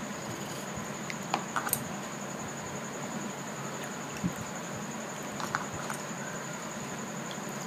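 A hand rinsing raw cut potato strips in a plastic bowl of water: soft splashes and a few light clicks as the strips are stirred and knock together.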